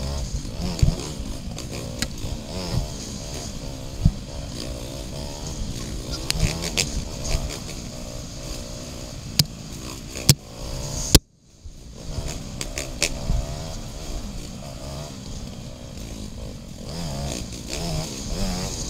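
Yamaha TT-R dirt bike's single-cylinder four-stroke engine running on the trail, its pitch rising and falling with the throttle. Sharp knocks are heard several times, and the sound cuts out for a moment a little past halfway.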